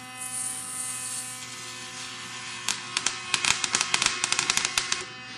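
DC electric arc at 280 volts and about 40 amps, drawn between copper electrodes slowly pulling apart: a hiss at first, then from about two and a half seconds in a rapid run of sharp crackling pops for some two seconds before it stops. A steady hum with several whining tones runs underneath.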